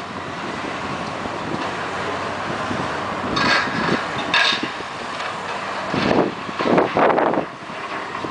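Demolition excavator tearing into a stadium's wrecked steel and concrete structure: a steady rumble of machinery with several short bursts of scraping and crashing debris, two sharp ones in the middle and a louder cluster near the end.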